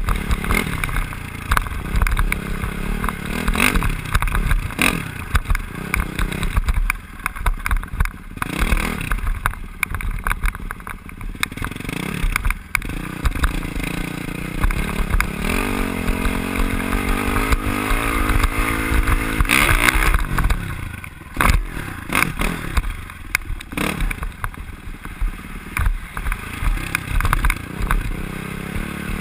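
Dirt bike engine revving up and down as it is ridden over rough sandy ground, with repeated knocks from the bumps. The pitch climbs and falls with the throttle.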